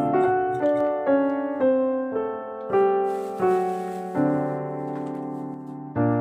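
Background piano music: a melody of single notes, a new one about every half second, over held low notes.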